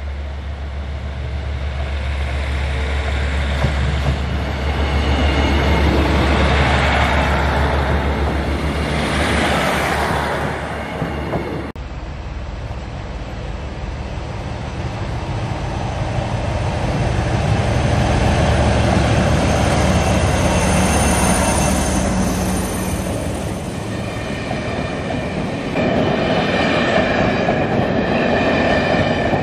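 Trains passing over a level crossing. First a diesel multiple unit approaches and passes with a steady low engine drone. After a cut about 12 s in, a loco-hauled excursion train of coaches rolls across with a continuous rail and wheel noise, and steady engine tones come in near the end as its rear diesel locomotives draw near.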